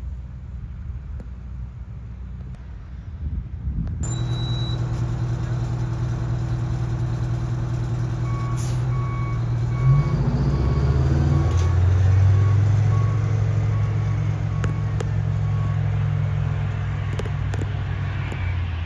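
Regional jet's twin turbofan engines droning and whining as it comes in to land, swelling after a few seconds and loudest near the middle. A vehicle's back-up beeper beeps steadily over it for several seconds.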